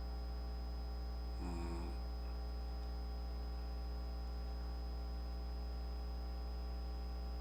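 Steady low electrical mains hum with a faint high whine over it, and one brief faint pitched murmur about one and a half seconds in.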